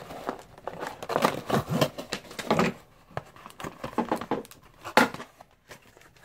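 Plastic and cardboard packaging of a mini quadcopter box being handled and pulled apart: crinkling and rustling with scattered clicks, busiest in the first few seconds, and a sharp snap about five seconds in.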